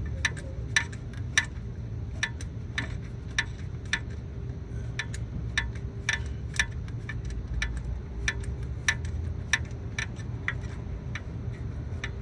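Socket ratchet clicking in short, regular strokes, about one or two clicks a second, as a spark plug is being unscrewed from an LS V8's cylinder head. A steady low hum runs underneath.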